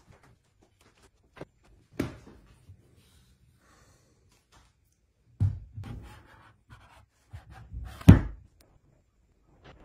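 Short hollow bamboo pieces knocking and clattering against each other and a plastic mould as they are set in place by hand: a few separate knocks, the loudest near the end.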